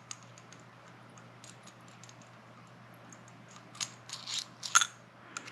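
Small metal watch-tool bits and a screwdriver handle clicking and rattling as they are handled. The clicks are light and scattered at first, then come in a quick run of sharper clicks toward the end.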